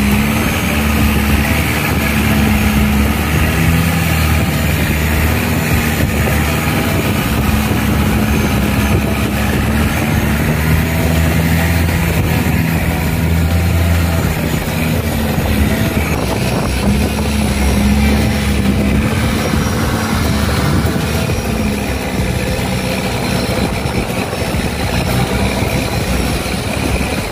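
Longtail boat engine running steadily at speed close by, a loud drone whose pitch shifts slightly now and then, over rushing water and wind.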